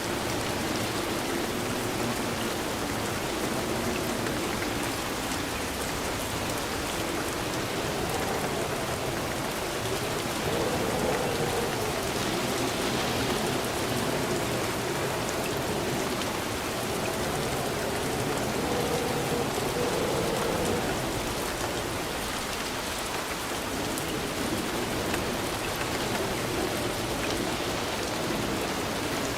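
Steady rain falling on surfaces: an even, continuous hiss of many drops.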